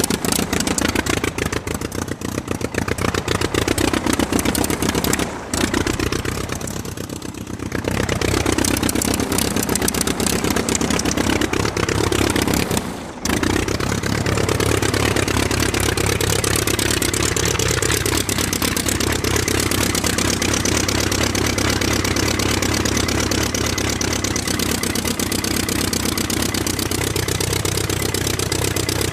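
Aircraft engine running steadily, its pitch wavering up and down a little, with two brief dips in level about five and thirteen seconds in.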